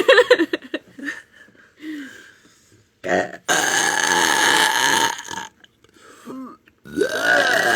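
A series of loud belches: a short one at the start, a steady one of about two seconds in the middle, and another drawn-out belch near the end that rises and falls in pitch.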